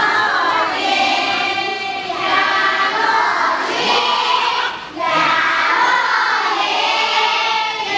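A group of children and adults singing a Dong duoye circle-dance song together in phrases, with a short pause for breath just before five seconds in.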